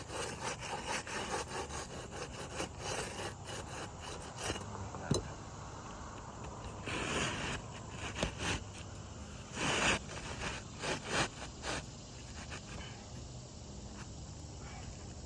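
A hand tool scraping and prying under asphalt roof shingles to work a leftover roofing nail loose: a run of short scrapes and taps, with two longer scrapes about seven and ten seconds in.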